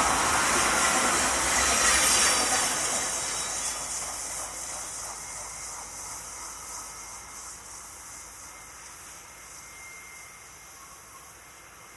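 Freight train rolling by and receding: a steady rushing noise of wheels on rail, loudest about two seconds in, then gradually fading away.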